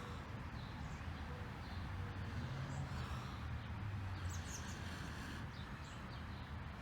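Outdoor ambience: a steady low rumble with scattered short, high bird chirps, a cluster of them near the middle.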